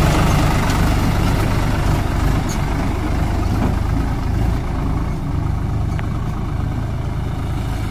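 Swaraj 744 XT tractor's three-cylinder diesel engine running steadily, growing gradually quieter as the tractor and trailer move away.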